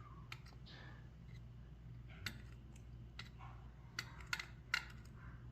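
Faint, scattered clicks and taps of small metal lock parts being handled, over a steady low hum.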